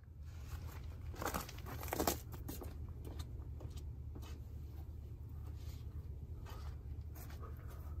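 Outdoor background: a steady low rumble, with a few short rustling crackles, the loudest about one and two seconds in, and fainter ones later.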